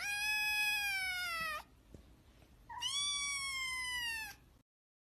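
Kitten meowing: two long, high meows about a second and a half each, the second starting a little past the middle, each sliding slightly down in pitch at the end.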